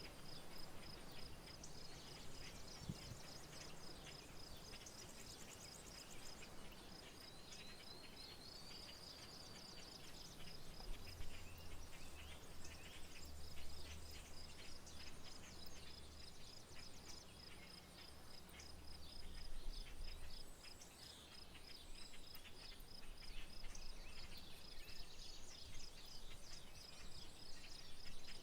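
Rural outdoor ambience: an insect trills steadily in even high pulses while birds chirp here and there, with one rising bird call about a third of the way in. A faint low rumble comes in through the middle.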